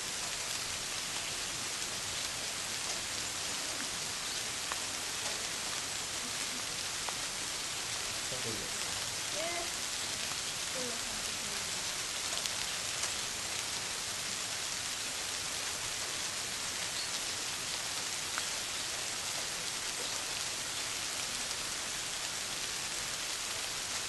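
Steady rain falling on a garden pond and the surrounding foliage, an even hiss.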